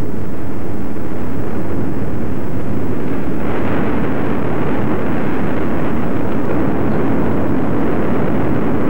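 Volcanic eruption rumbling steadily with no pitched tone. About three and a half seconds in, the noise grows fuller and hissier as a basaltic lava fountain jets molten spatter.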